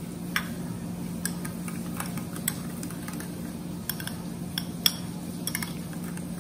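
Wire whisk stirring yogurt in a glass bowl, with irregular light clinks of the metal whisk against the glass. A steady low hum runs underneath.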